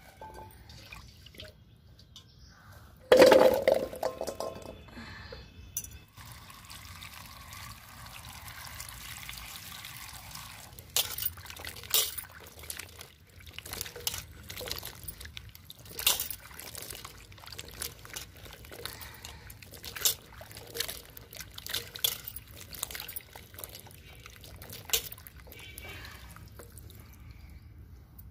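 Hands swishing and splashing cubes of ash gourd in water in a steel bowl, rinsing the limewater off the pieces. A loud splash comes about three seconds in, and the second half holds many short sharp splashes and clunks as the pieces are stirred and lifted out.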